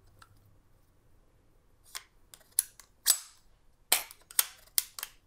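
Sharp clicks and knocks of metal parts on a Sheridan-based pump paintball pistol as it is handled and turned over in the hands. A quiet start, then about ten separate clicks from about two seconds in, the loudest a little past three seconds.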